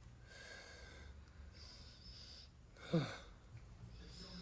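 A man's short wordless vocal sound about three seconds in, falling quickly in pitch, like a sigh or groan, over a faint background.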